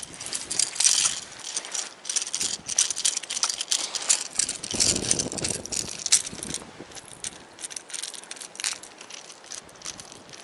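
Quick clicking and rattling as a small pike caught on a wobbler is landed and handled: the lure and tackle clatter, with dry leaves crackling. Busy for the first several seconds, then sparser near the end.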